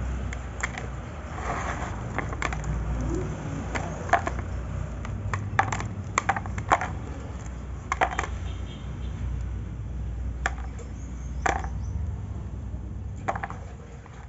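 Flakes of dry clay being handled and dropped onto a pile in a basin, giving sharp, irregular clicks and clinks, over a steady low rumble.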